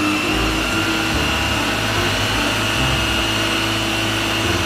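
A small motor running steadily, a constant hum with a thin high whine over it.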